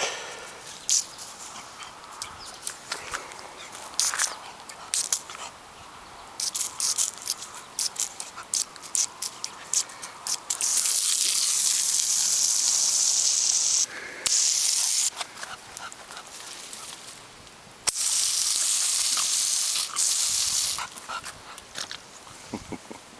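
Shar pei puppy moving about, with a run of quick clicks and rustles. Two stretches of loud, steady hiss of a few seconds each start and stop abruptly about halfway through.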